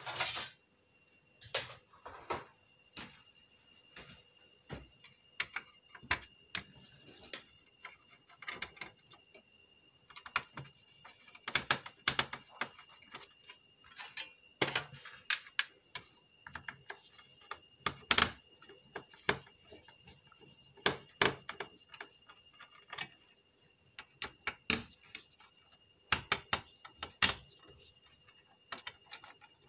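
Irregular small metallic clicks and taps of a screwdriver and screws working on a car stereo's metal chassis as it is taken apart, some bunched in quick runs. A faint steady high whine runs underneath.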